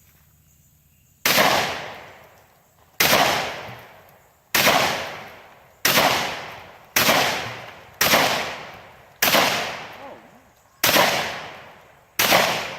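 Remington 1100 semi-automatic shotgun fired nine times in steady succession, a shot every second or so, each blast trailing off in an echo.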